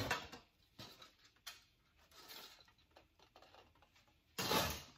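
Hands rummaging through Halloween decorations in cardboard boxes: a run of short rustles and light knocks, with a louder half-second rustle near the end.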